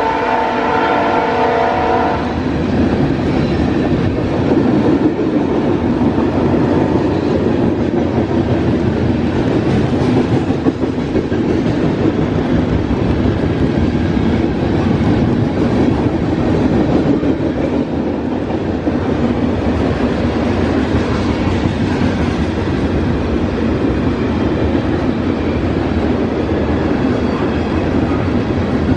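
A locomotive air horn sounds and cuts off about two seconds in. It is followed by the steady rumble and clatter of a freight train's cars rolling past.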